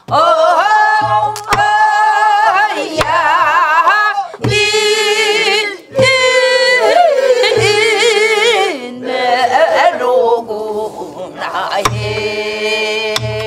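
A woman singing a Namdo (southwestern Korean) folk song in a full voice with wide, wavering vibrato, keeping time on a buk barrel drum: deep drum thumps between phrases and a few sharp clicks of the stick on the drum's wooden frame.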